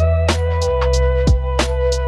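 Lo-fi chill background music with a steady drum beat, deep bass and held, sliding synth tones.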